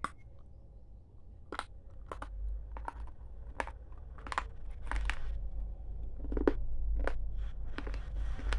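Kurkure corn puff snack crunching as it is bitten and chewed close to the microphone: a run of sharp, irregular crunches, about two a second, over a low rumble.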